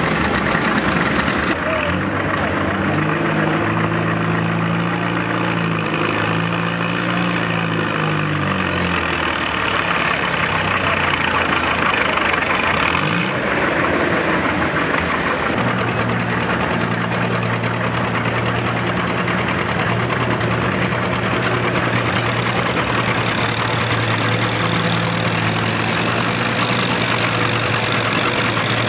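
Antique farm tractors pulling a concrete-block weight sled under load. First a John Deere two-cylinder engine works hard, its note shifting up and down; then, about halfway through, a Farmall's engine runs at a steady note as it pulls.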